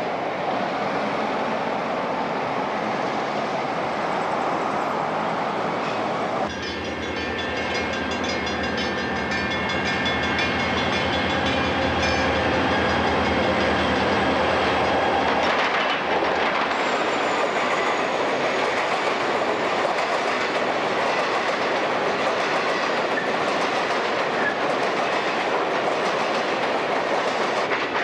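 Freight trains passing close by: steady rolling noise from a passing train, then, after an abrupt change about six seconds in, the low, steady drone of a lead set of diesel locomotives going by. From about the middle on, this gives way to the rumble and clickety-clack of loaded hopper cars rolling past.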